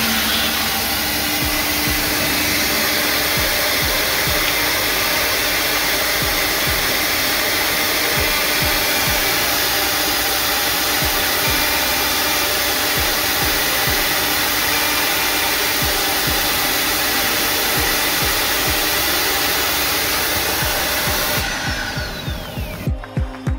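Two-head CNC horizontal drilling and milling machine running: a steady, loud rushing whine of its spindles and dust-extraction suction as it machines wooden parts, with many small knocks underneath. The noise cuts off near the end and a low throbbing pulse begins.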